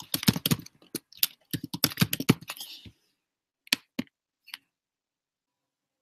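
Computer keyboard typing: a quick run of keystrokes lasting about three seconds, followed by three separate clicks about half a second apart.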